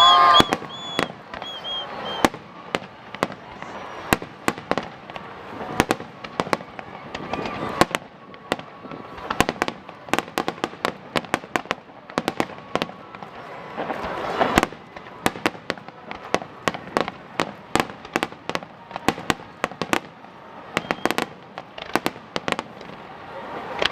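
Fireworks display: a dense run of sharp bangs and crackles from bursting shells, with a louder bang about fourteen seconds in.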